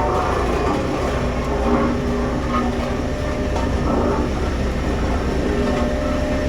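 Heavy construction machine's diesel engine running steadily under load: a continuous deep rumble with wavering mid-pitched tones over it.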